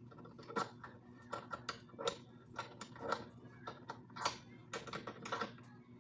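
Irregular clicks and light knocks from a metal scissor-arm microphone boom stand being handled and adjusted at its joints.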